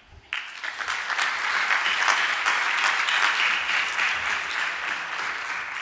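Audience applauding: the clapping starts suddenly just after the start, swells to full strength within a second or two, and eases a little toward the end.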